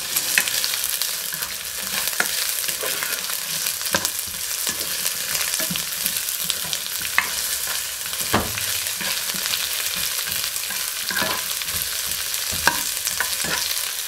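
Garlic, onion and celery sizzling in olive oil in a large non-stick frying pan, stirred with a cooking spoon that knocks and scrapes against the pan every second or two.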